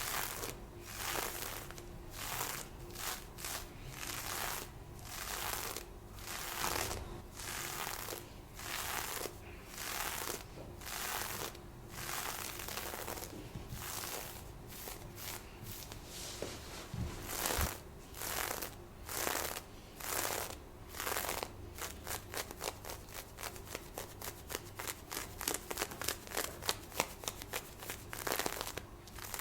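Scratching and rubbing on black and white lace fishnet stockings, a run of papery scraping strokes at roughly one a second that turn into quicker, shorter strokes about two-thirds of the way through.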